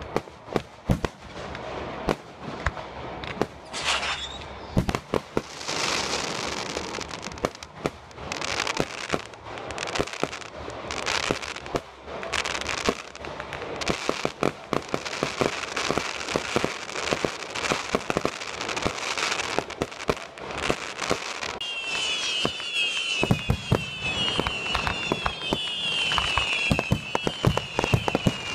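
Fireworks display: aerial shells bursting with sharp bangs and crackle at an uneven pace, sometimes several a second. In the last several seconds a run of shrill, repeated rising whistles sounds over the bangs.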